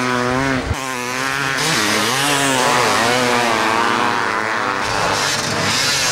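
Motocross bike engines revving hard, their pitch rising and falling again and again as the riders open and close the throttle.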